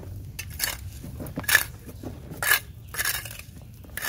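Small metal garden trowel scraping and scooping crumbly compost across a concrete floor, about five rasping strokes roughly a second apart.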